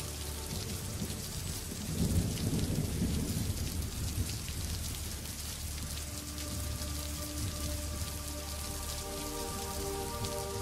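Underwater crackling: a dense, rain-like fizz of fine clicks, over a low rumble that swells about two seconds in and settles again. Soft music with held notes comes in underneath about halfway through.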